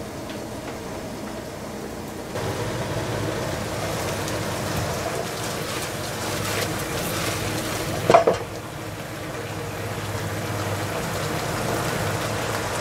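Garlic-butter chicken bubbling and sizzling in its sauce in a nonstick frying pan, starting about two seconds in. A brief, louder clatter comes about eight seconds in.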